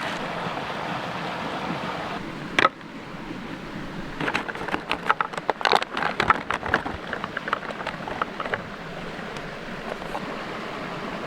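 Steady rushing of creek water. About two and a half seconds in comes one sharp knock, then from about four seconds a quick, irregular run of clicks and knocks lasting about four seconds.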